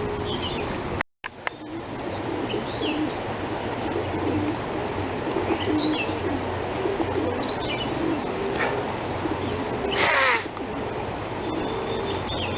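Steady hiss of heavy rain, with birds calling through it: repeated low cooing calls and a few short high chirps, and one louder sweeping call about ten seconds in. The sound cuts out for an instant about a second in.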